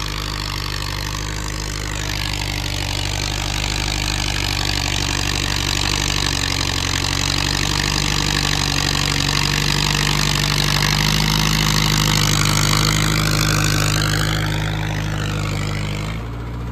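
Mahindra Yuvo 575 DI tractor's diesel engine running steadily under load while pulling a seven-foot rotavator through the field, with the rotavator churning soil. The sound swells gradually as the tractor comes closer and eases off near the end.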